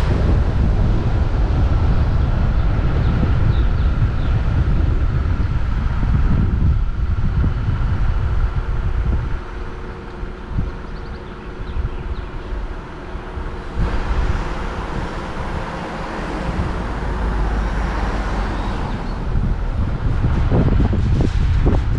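Wind buffeting the microphone of a camera mounted on the hood of a moving Jeep Wrangler, mixed with its engine and tyre noise. The rushing eases about nine seconds in and builds again from about fourteen seconds.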